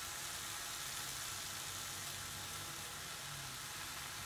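Besan chilla (gram-flour pancake) sizzling gently on a hot flat iron tawa, its second side cooking after the flip: a steady, soft hiss.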